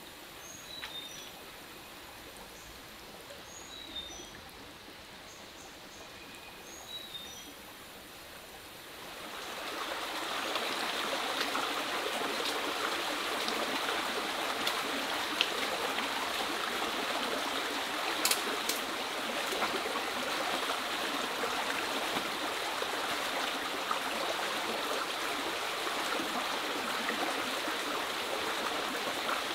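Small forest stream running over rocks. For about the first nine seconds it is faint and a bird gives short high chirps three times; then the trickling, splashing water comes in much louder and holds steady.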